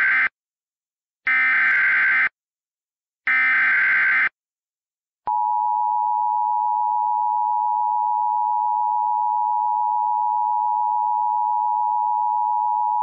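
Emergency Alert System header: three one-second bursts of screechy digital data tones (the SAME header, the first already under way), encoding an Evacuation Immediate alert. About five seconds in, the EAS attention signal begins, a steady two-tone beep held for about eight seconds.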